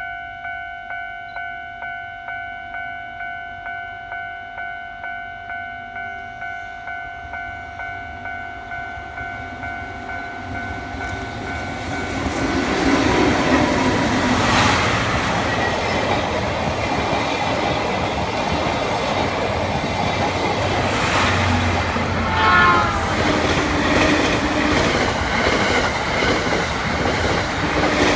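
Level crossing warning bell ringing in an even pulse of about two strikes a second. About twelve seconds in, an EF81 electric locomotive hauling 12-series passenger coaches passes close by, wheels clattering over the rail joints, with a short squeal near the end.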